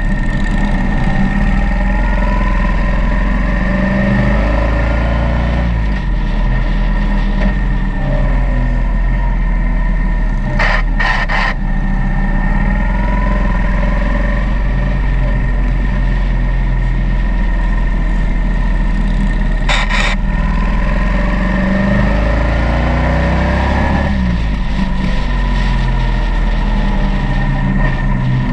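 Motorcycle engine heard from the onboard camera, its pitch rising and falling repeatedly as the bike accelerates out of bends and backs off into them, over steady riding-wind noise. A few short clicks come around the middle.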